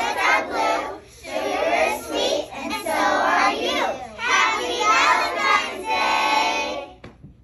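A group of young children's voices in unison, in short phrases with brief breaths between them, stopping about seven seconds in.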